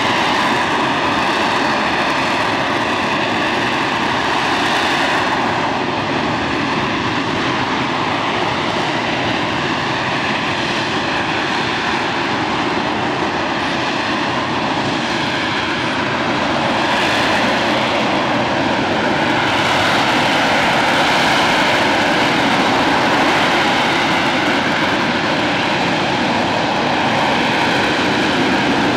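McDonnell Douglas AV-8B Harrier II's Pegasus turbofan running steadily: a loud, continuous jet noise with faint whining tones that drift slowly in pitch, growing slightly louder near the end.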